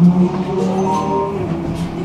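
A short chime of several rising notes from the tram's on-board announcement system, sounding just before the next-stop announcement, over the low hum of the tram's running gear. The notes stack up about half a second in and die away about a second later.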